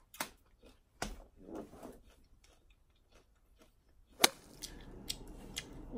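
A few sharp crunches and clicks from biting and chewing slices of candy apple, the loudest about four seconds in.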